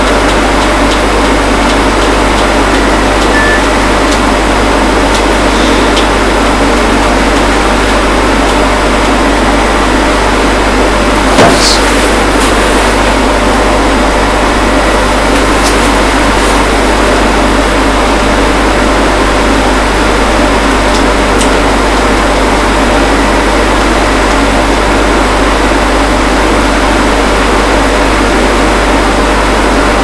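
Loud, steady electrical hum with hiss, with a single sharp click about eleven seconds in.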